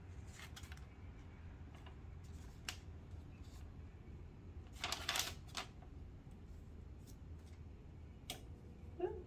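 Scattered light clicks and paper rustles as heat tape and sublimation paper are handled on an acrylic badge blank, with a brief louder crinkle about five seconds in.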